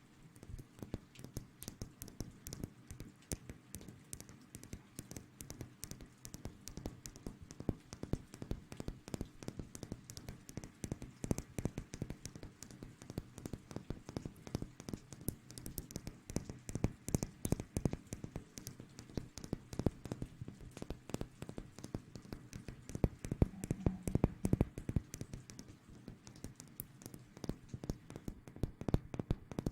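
Close-miked ASMR trigger sounds: fast, irregular tapping and rustling right on the microphone, a dense patter of small clicks.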